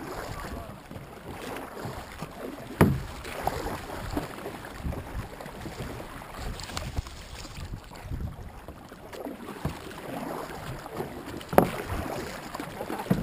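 Kayak and paddleboard on the water: paddles splashing and water sloshing against the hulls, with wind on the microphone. Two sharp knocks stand out, one about three seconds in and a louder one near the end.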